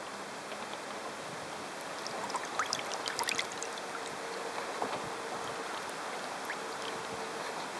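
Water rushing and splashing along the hull of a radio-controlled sailboat heeled under sail, with a cluster of small splashes about two to three and a half seconds in.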